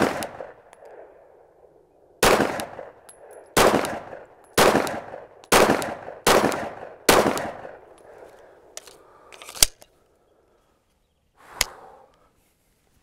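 A Glock 9 mm pistol firing seven shots at a steady pace. The gaps shrink from about two seconds to under one, and each shot has an echo. A couple of shorter, sharper cracks follow later.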